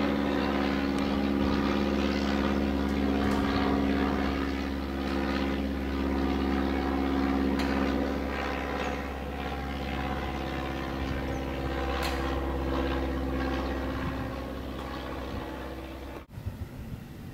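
Piston engine and propeller of a light high-wing single-engine airplane flying overhead, a steady drone. The drone cuts off abruptly about a second before the end, leaving a low, uneven rumble.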